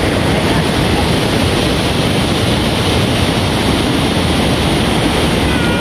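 Steady, loud rushing of a fast-flowing mountain river.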